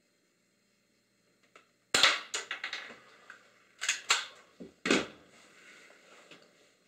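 Crosman Stinger 311 spring-powered airsoft pistol being shot: a cluster of sharp snaps and clacks about two seconds in, then more snaps and clacks around four and five seconds in.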